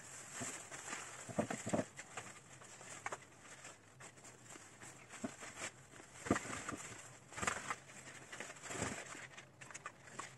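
Rustling and crumbling of soil with irregular knocks and taps, about seven sharper ones, as an aspidistra is worked out of its cramped pot and the old soil is shaken from its roots.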